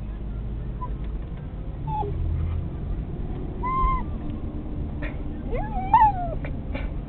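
A dog whining with excitement inside a moving car: a few short high squeaks, a longer whine, then one that rises and falls about six seconds in, over the low rumble of the car.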